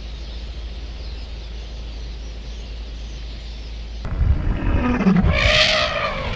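African elephant trumpeting once, a rising-then-falling call about a second long, some five seconds in, over the low thuds and rumble of the herd running off. Before that, only a steady low rumble of wind.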